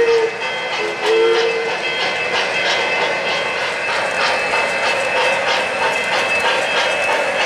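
O-gauge model steam locomotive's onboard sound system blowing its whistle, a long blast cutting off right at the start and a short blast about a second in, then steady chuffing at about three beats a second over the rumble of the train running on three-rail track.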